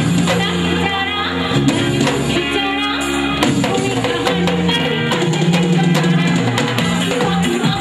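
A woman singing into a handheld microphone over amplified backing music with a steady drum beat and bass.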